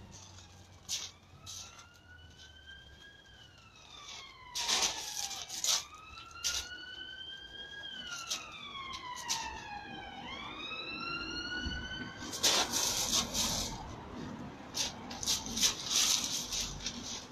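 An emergency vehicle siren wails, its pitch rising and falling slowly about every four seconds, with a quicker rise about ten seconds in. Sharp crunches of footsteps on gravel cut across it, loudest about five seconds in and again from about twelve seconds on.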